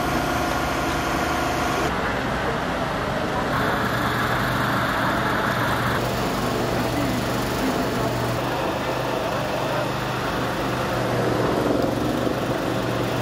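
Steady running of engines and equipment at a rescue scene, a constant low hum under a noisy wash, changing abruptly a few times.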